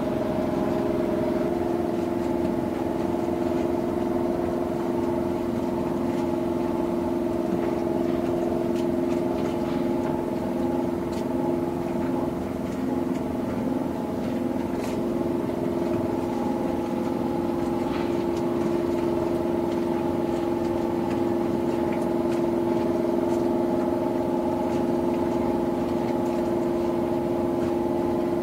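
A boat's engine running steadily at an even speed: a constant drone with several steady pitched tones that stay level throughout.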